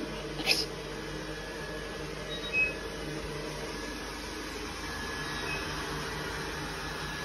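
Robot vacuum cleaner running with a steady motor hum. Two short, sharper sounds stand out over it, about half a second and two and a half seconds in.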